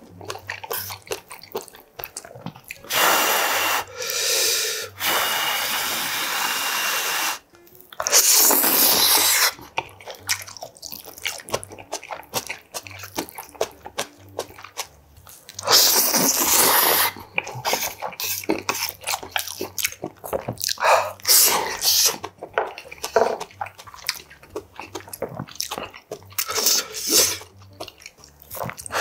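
Close-up eating sounds of spicy stir-fried noodles: three long, loud slurps, about three, eight and sixteen seconds in, the first lasting several seconds, with wet chewing and short smacks and chopstick clicks in between.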